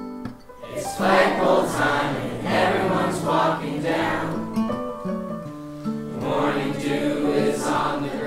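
Music: a group of voices singing together over plucked, strummed strings, with loud bursts of the voices about once or twice a second.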